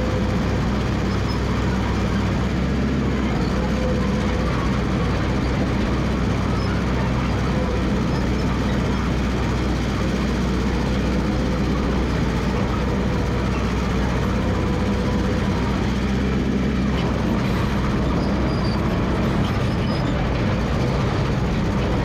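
Massey Ferguson MF 300 crawler dozer's engine running steadily, with no let-up.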